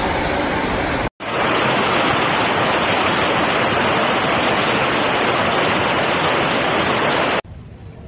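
A hailstorm with strong wind: a loud, dense rush of large hailstones falling and pelting surfaces, with wind driving them. The sound cuts out for an instant about a second in, and drops abruptly to a much quieter hiss near the end.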